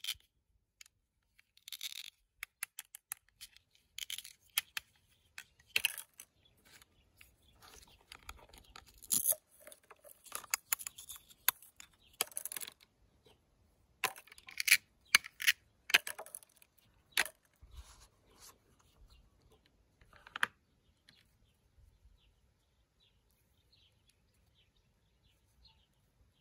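Plastic toy food pieces handled and knocked together: a busy run of clicks, taps and short scrapes that stops about twenty seconds in, leaving only faint ticks.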